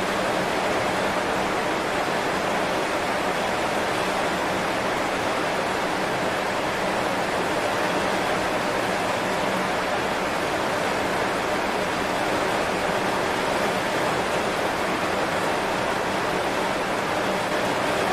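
Heavy rain falling steadily on banana leaves.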